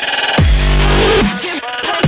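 Electronic background music: after a rising sweep, a deep bass hit falling in pitch lands about half a second in, followed by heavy sustained bass under warbling synth tones.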